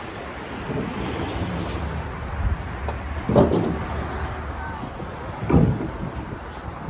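Two heavy thumps about two seconds apart, over a steady low rumble.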